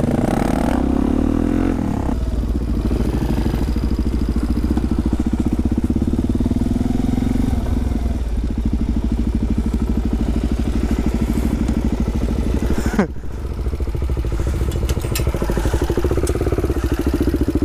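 Supermoto motorcycle engine heard from on board as the rider pulls away and rides along, the engine note rising and falling with the throttle. About thirteen seconds in, the sound drops away sharply for a moment, then builds again.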